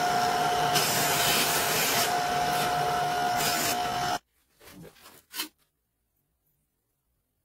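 Bench polishing motor running a cloth buffing wheel with a steady high whine, with rubbing hiss as a jewellery chain is pressed against the buff about a second in and again near 2.5 and 3.5 seconds. The motor sound stops abruptly about four seconds in, followed by a few faint clicks.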